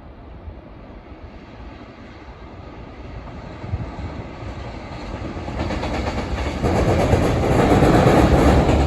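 A train approaching along the track, its rumble and wheel clatter growing steadily louder until it is close by near the end, where the sound cuts off suddenly.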